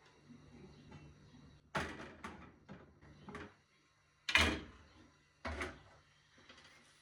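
Three sharp clunks with lighter clatter between them, the loudest about halfway through: something hard being handled, set down or shut.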